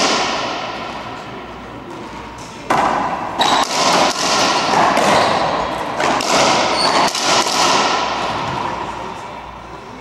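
Racquetball rally: the ball cracks off racquets and the court walls in a run of sharp hits, each echoing in the enclosed court. There is a hit at the start, a quick cluster about three seconds in, and more around six to seven seconds.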